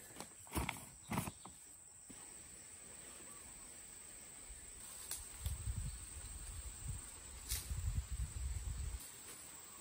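Steady high-pitched chirring of insects. A couple of thumps come in the first second and a half, and an uneven low rumble runs from about five to nine seconds in.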